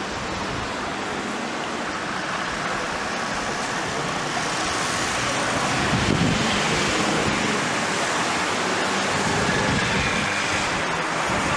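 City street traffic: a steady wash of cars passing on the road, swelling a little about halfway through as a vehicle goes by close.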